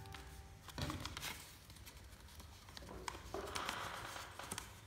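Lined notebook paper being folded and handled by hand: soft rustling and crinkling, with a few small clicks and a brief louder rustle about a second in.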